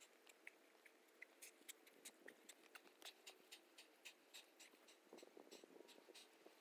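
Near silence: faint scattered ticks, several a second, with a soft scuffle near the end.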